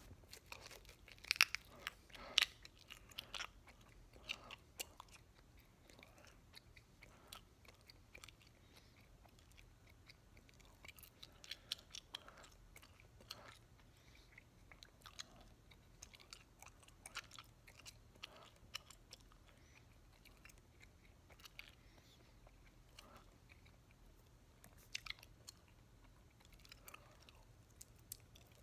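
Close-up, quiet chewing of a wad of three pieces of bubblegum: irregular wet clicks from the mouth, busiest in the first few seconds and again near the end.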